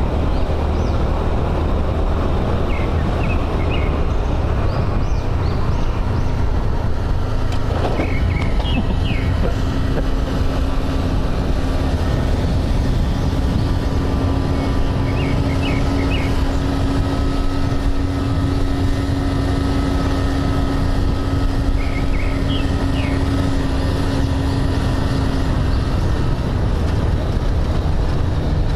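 Motorbike engine running steadily at cruising speed, with wind rushing on the microphone; the engine note holds level and shifts slightly higher near the end. Short high chirps come through several times.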